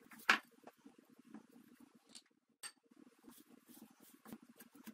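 A hand mixing and pressing flour into sourdough starter in a glass bowl to work it into a stiff dough: faint soft rustling and squishing. There is one sharp click against the bowl just after the start.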